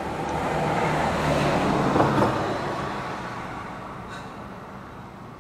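A road vehicle driving past, its noise swelling to a peak about two seconds in and then fading away.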